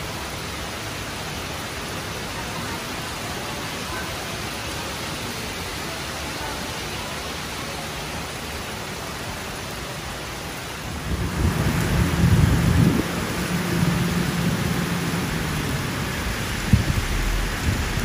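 Heavy rain falling steadily on trees and foliage. About eleven seconds in, a loud low rumble of thunder comes in and rolls on to the end, with a sharp louder clap near the end.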